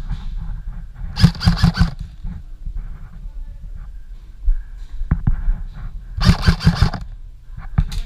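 Airsoft rifle firing two short bursts of about five rapid shots each, about a second in and again about six seconds in.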